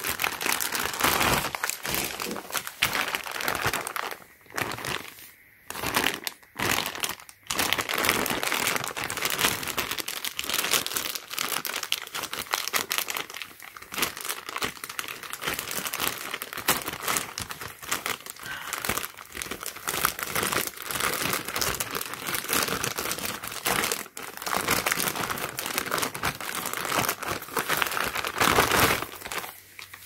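Plastic packaging crinkling and rustling as a white plastic mailer and a clear plastic bag are handled and pulled open by hand, with a few short pauses about four to seven seconds in.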